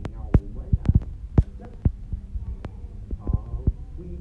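Irregular sharp clicks and knocks, a dozen or so at uneven spacing, as on handling noise picked up by a clip-on microphone, mixed with a few brief low voice sounds.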